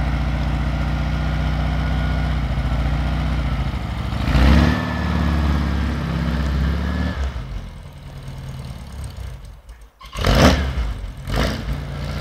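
Volkswagen 1.6 air-cooled flat-four engine on a trike, running at low revs with a steady throb. It revs up about four seconds in, holds for a few seconds and eases back. Two loud, short bursts of noise come near the end.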